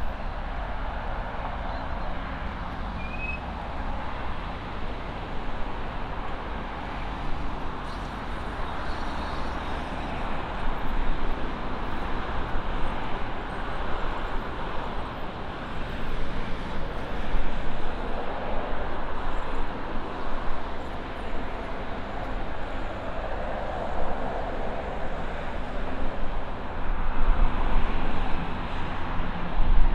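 Jet airliner engines running at a distance, a steady rumble that swells and eases and grows louder near the end, with low wind rumble on the microphone.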